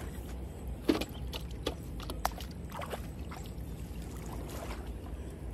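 Shallow water splashing and dripping as a mosquito net used as a fishing net is dragged and lifted out of a channel, with a sharp splash about a second in.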